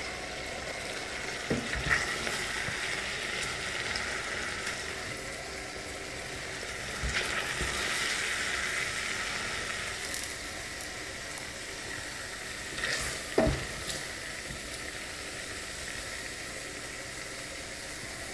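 Steady, soft sizzling of hot eggplant stew left in the pot, broken by a few short knocks and scrapes of a silicone serving spoon against the pot and plate as it is dished out; the loudest knock comes about two-thirds of the way through.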